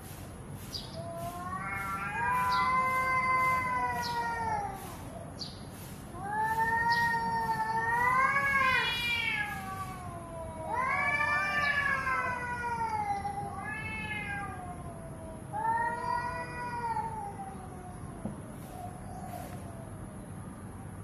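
Two cats squaring off, yowling at each other: long, wavering threat yowls that rise and fall in pitch, about five of them, the first three each several seconds long and the last two shorter.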